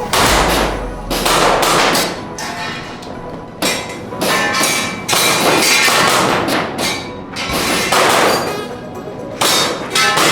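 Gas airsoft pistol firing a string of shots at uneven intervals, roughly one a second, with steel targets clanging and ringing briefly after hits, over background music.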